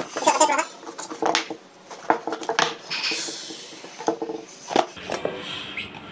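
Hands handling and opening a cardboard smartphone box: a few light taps and knocks of the box against fingers and the table, and a soft scraping as the lid is slid off.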